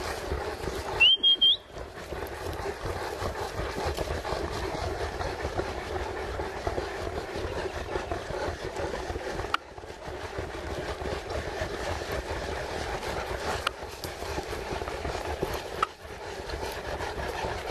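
A short whistle about a second in, rising in pitch, holding, then rising again, over a steady rumble of outdoor background noise.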